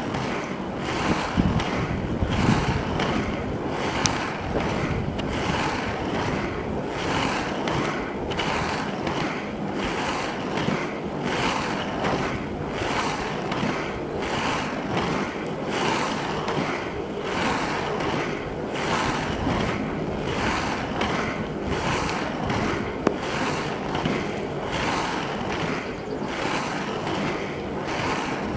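Skate wheels rolling fast on an asphalt path, a steady rushing noise with a regular pulse about twice a second, mixed with wind buffeting the microphone.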